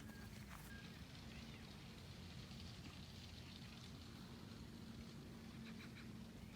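Near silence: faint open-air ambience with a low steady rumble, a faint hum and a few faint high chirps and ticks.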